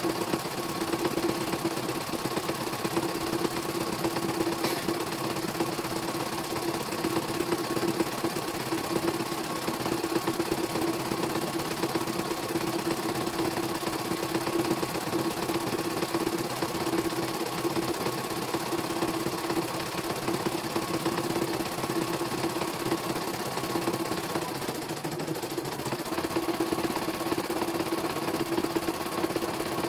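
CNY E900 computerised embroidery machine stitching a design: a steady fast needle-and-motor hum with a constant whine, with a brief lull about 25 seconds in.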